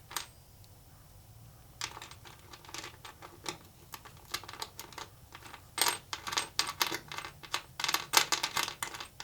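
Bolts and small metal hardware clinking and rattling as they are handled, an uneven clatter of clicks that starts about two seconds in and gets busier toward the end.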